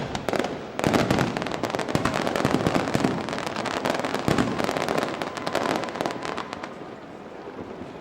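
Fireworks display: a dense volley of rapid crackling pops that surges about a second in and thins out toward the end.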